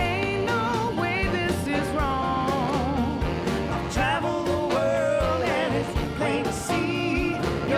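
Background music: a rock-and-roll song with a singing voice over a steady beat.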